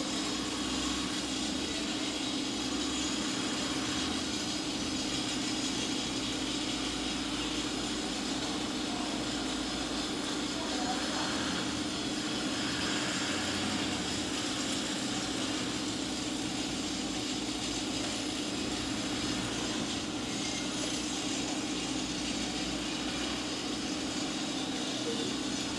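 A steady background hum under an even hiss, unchanging throughout, with no clear action sound.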